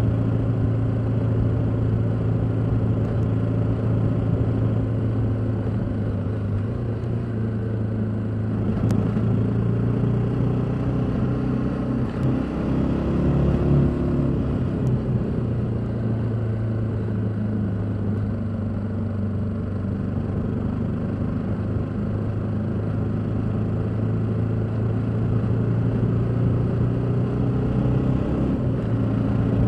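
BMW G310GS's single-cylinder engine running steadily while the motorcycle is ridden along at road speed. Its note shifts briefly about halfway through, then settles again.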